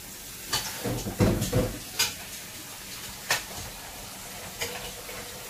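Cooking at a gas stove: a metal utensil knocks and scrapes against a steel pot several times, over a steady hiss.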